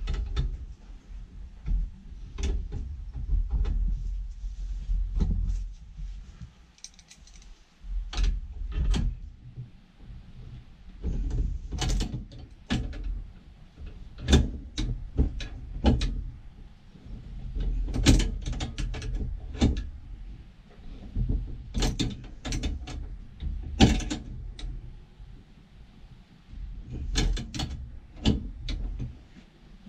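Irregular metallic clicks, clinks and knocks of tools and pipe fittings being handled and worked, over low thuds.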